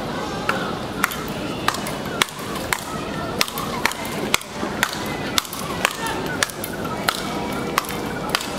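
Speedball rally: the ball on its tether is struck back and forth with solid paddles, a sharp crack roughly every half second.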